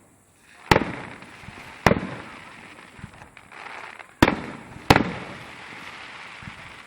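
Fireworks salute: four sharp bangs of bursting shells within about five seconds, each trailing off in a long fading rumble.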